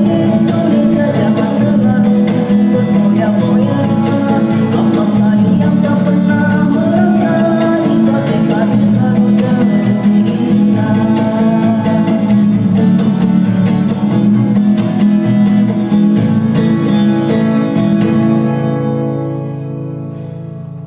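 A man singing with guitar accompaniment, his voice without added effects. Near the end the singing stops and the music fades out on held notes.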